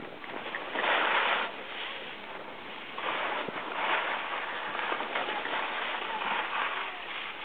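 Skis sliding and scraping over packed snow, a steady hiss that swells into louder scrapes as the skier turns, strongest about a second in and again from about three seconds on.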